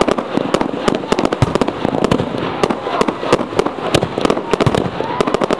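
Fireworks going off in a display: a dense, rapid run of bangs and crackles, several reports a second without a pause.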